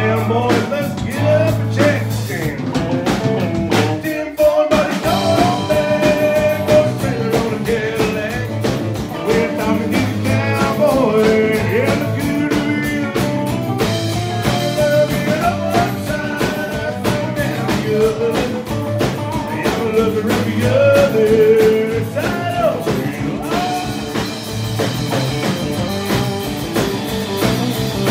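Live country-rock band playing loud, steady music: acoustic and electric guitars, bass guitar and drum kit.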